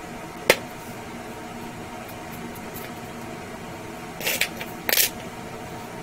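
Small parts being handled by hand: one sharp click about half a second in, then a quick cluster of clicks and scrapes a little before the end, over a steady low hum.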